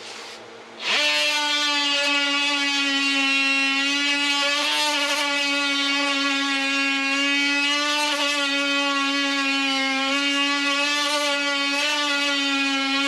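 A power tool switches on about a second in and runs steadily with a strong buzzing hum, its pitch sagging slightly a few times as if under load while trimming wood.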